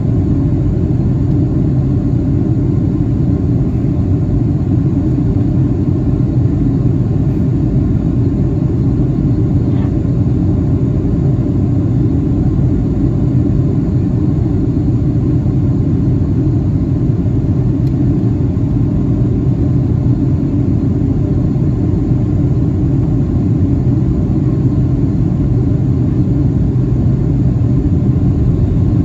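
Steady cabin rumble of a Boeing 757-300 airliner in flight: engine drone and airflow noise heard from inside the passenger cabin, unchanging throughout.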